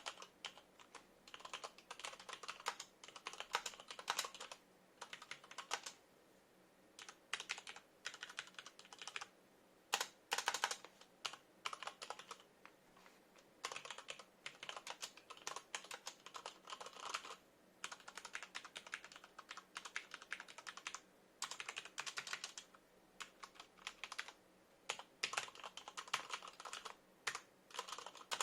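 Typing on an Adata XPG Summoner mechanical keyboard with Cherry MX Red linear switches: rapid runs of key presses in bursts, broken by short pauses.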